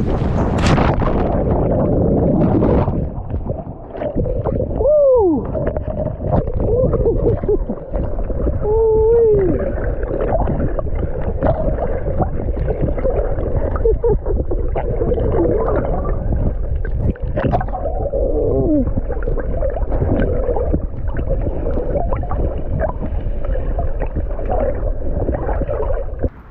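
Splash of a body entering the sea from a cliff jump, then sound heard from underwater: a dense rushing churn full of bubbling, gurgling tones that glide up and down, running until it cuts off suddenly at the end.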